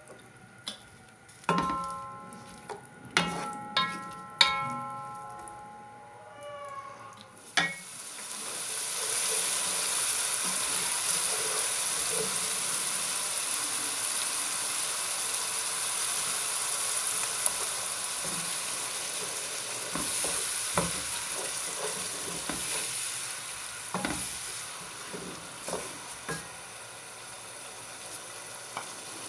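A few sharp, ringing clinks of cookware, then, about seven and a half seconds in, chopped onions start sizzling steadily as they fry in hot oil. A wooden spatula stirs them, with occasional small knocks and scrapes against the pan.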